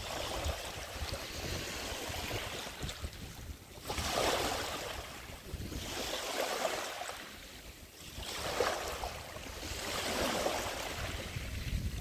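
Small sea waves lapping on a pebbly sand beach, each wash swelling and ebbing every two to four seconds, over a low wind rumble on the microphone.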